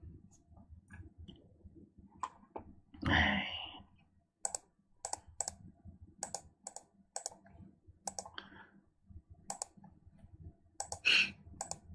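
Computer mouse clicking again and again, single sharp clicks about two a second, as letters are picked one at a time on an on-screen keyboard. A brief louder sound breaks in about three seconds in.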